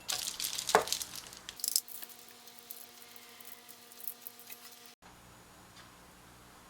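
Small handling noises: a quick flurry of light clicks, scrapes and rustles in the first two seconds, then only a faint steady hum.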